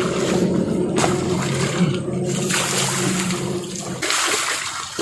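Water splashing and rushing in a stream as people bathe, coming in several surges. A steady low hum runs underneath and stops about four seconds in.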